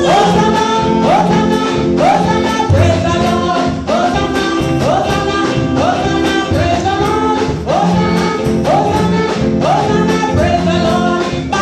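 Gospel music with singing and instruments, a short rising figure repeating about once a second over a steady beat.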